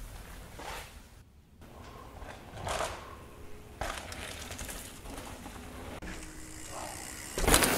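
Quiet forest ambience with faint scattered rustles, then near the end a sudden loud rush of noise as a mountain bike comes down the dirt trail past the camera.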